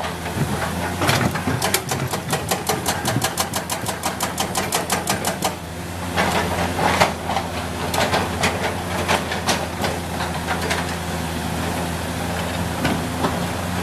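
Komatsu PC200 excavator's diesel engine running steadily. A quick, even run of clicks, about five a second, lasts a few seconds, followed by irregular knocks and clatter.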